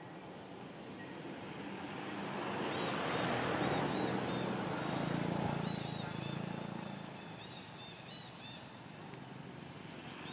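A passing motor vehicle swells and fades over several seconds, loudest in the middle, with a low engine hum under the rush. Faint, short, high chirps sound over it a few times.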